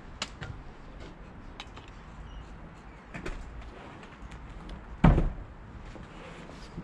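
Stone blocks being laid in mortar: a few light taps and scrapes of stone and trowel, then one heavy thud about five seconds in as a block is knocked down into place.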